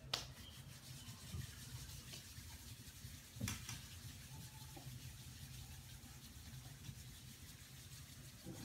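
Faint rubbing of hands over the body during a self-massage, over a low steady hum, with two soft clicks, one right at the start and one about three and a half seconds in.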